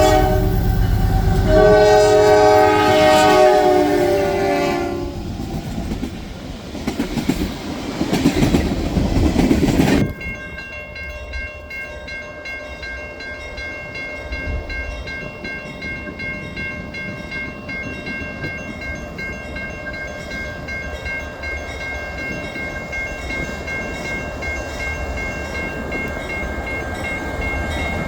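Train horn sounding a chord, a short blast and then a longer one that ends about five seconds in. Then the rumble of a passing train swells and cuts off suddenly about ten seconds in, giving way to a quieter, steady rolling rail noise with a faint high ringing.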